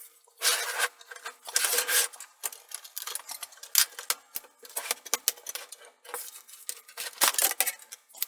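Plastic laptop case being pried apart with a guitar pick: scraping along the seam and a run of sharp clicks as the bottom panel's plastic clips snap free.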